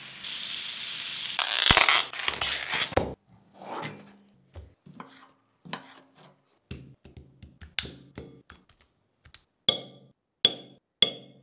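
Chicken skewers sizzling on a hot grill pan for about three seconds, then a run of short knocks as a knife cuts raw chicken on a wooden board, ending with a few sharper, ringing taps.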